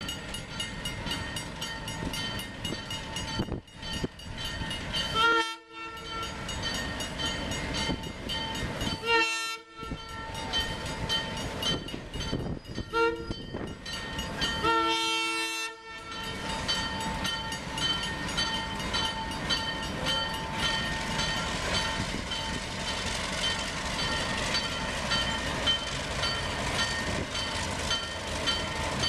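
Diesel locomotive air horn sounding the grade-crossing signal, long, long, short, long, over the steady running of an approaching consist of Chicago & North Western diesels led by an Alco RSD5.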